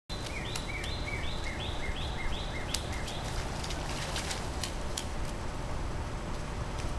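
A child's feet splashing through a shallow rain puddle on asphalt, a few splashes between about three and five seconds in. Meanwhile a bird repeats a quick two-part call about eight times in the first three seconds, over a steady low rumble of outdoor background noise.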